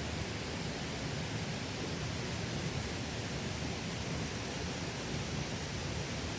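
Mountain stream water rushing steadily over rocks, an even, unbroken rush.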